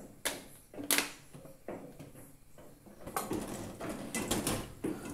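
Kitchen clatter: a few sharp knocks in the first two seconds, then from about three seconds in a dense run of scraping and tapping as an aluminium saucepan of garlic and oil is handled on the gas stove.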